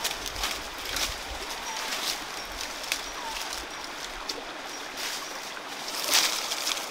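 Dry leaves and twigs crunching and rustling under bare feet moving over a leaf-littered rocky slope, with the loudest crunch a little after six seconds in, over the steady rush of a stream. A bird chirps briefly now and then.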